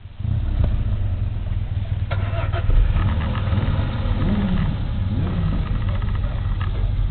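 Car engine and road rumble heard from inside a moving car, a steady low drone, with a few short clicks about two seconds in.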